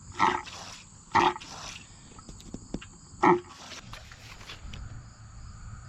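Primer bulb on a Briggs & Stratton mower carburetor being pressed by hand, a short squishing hiss with each press: three presses, the last one after a longer gap.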